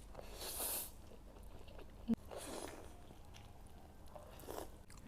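Close-miked eating sounds: a person chewing food in three short, soft bursts about two seconds apart, with one sharp click a little after two seconds.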